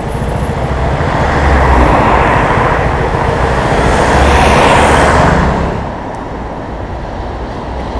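A road vehicle passing close by: its noise swells, is loudest about four and a half seconds in, and fades off about a second later.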